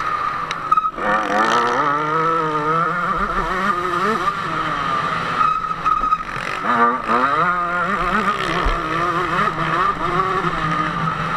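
KTM 150 SX single-cylinder two-stroke motocross engine racing at high revs, its pitch climbing and falling as the rider works the throttle and gears, with sharp drops about a second in and near the middle followed by quick climbs.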